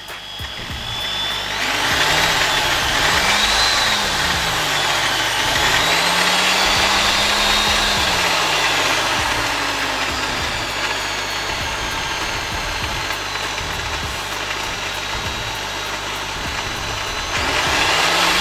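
Parkside PSBM 750 B2 corded hammer drill running free, with no load. Its motor whine rises and falls several times as the trigger is pressed and eased to vary the speed, settles into a steadier run, then speeds up again near the end.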